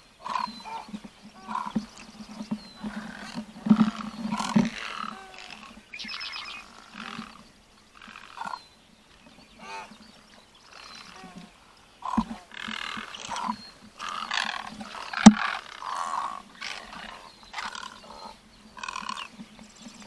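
Croaking calls of many wading egrets and herons, short harsh calls overlapping and coming in irregular bursts, with a sharp click about fifteen seconds in.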